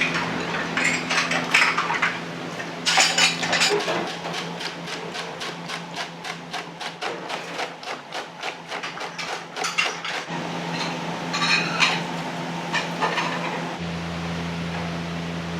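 Restaurant kitchen work: clinks and clatter of metal cookware and utensils over a steady hum. In the middle, for several seconds, there is a quick, even run of knocks, about six a second.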